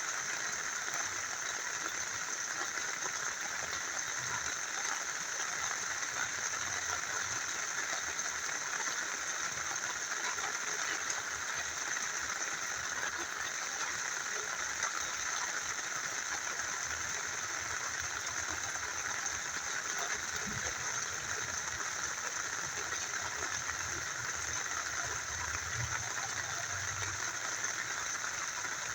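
Small river flowing steadily with rain falling, an even, continuous rush of water.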